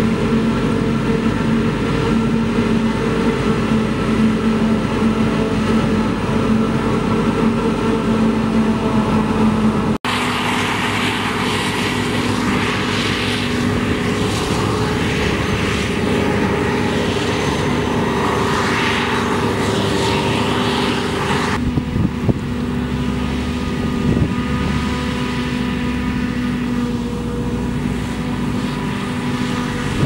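A New Holland FX60 self-propelled forage harvester chopping maize, with a tractor and silage trailer running alongside: a loud, steady engine drone. The sound changes abruptly about a third of the way in, and there are a few short knocks about two-thirds in.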